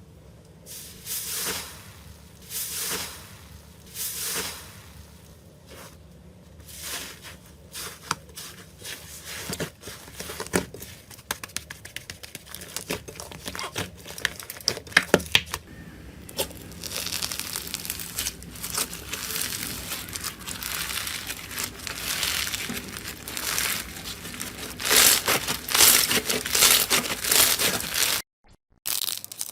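Slime being squeezed and pressed by hand, making crinkling, crackling squishes. First come separate squishes about every second and a half; from about ten seconds in they turn into a dense run of crackles and pops, with a short break near the end.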